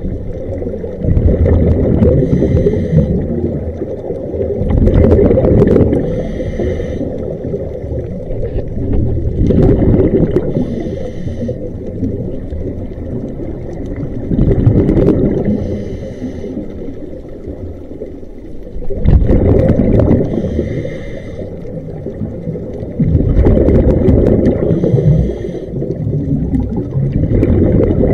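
Scuba diver breathing through a regulator underwater. Each breath is a loud burst of exhaled bubbles followed by a hissing inhale, about once every four to five seconds, six breaths in all.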